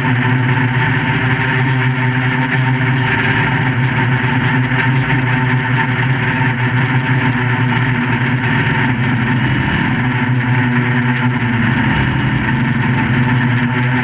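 QAV400 quadcopter's four brushless motors and propellers droning steadily in flight. The pitch wavers briefly about ten seconds in.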